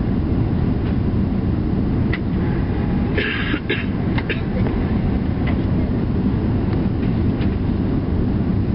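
Steady low roar of an airliner's engines and airflow heard inside the passenger cabin during the descent to land. A brief, sharper sound stands out about three seconds in.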